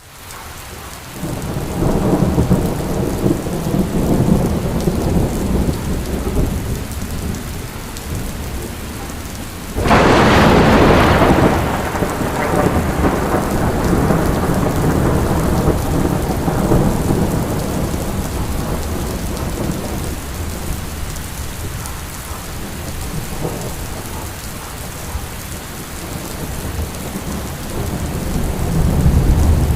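Rain falling steadily through a thunderstorm, with thunder rolling. About ten seconds in comes a sudden loud thunderclap that slowly rumbles away, and another rumble builds near the end.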